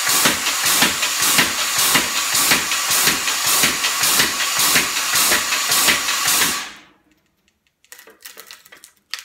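Kinyon-style pneumatic blacksmith power hammer cycling, its air valves hissing with each stroke as the ram goes up and down about two to three times a second. The owner says it hits, but not very hard. It stops suddenly about seven seconds in, followed by a little light clatter.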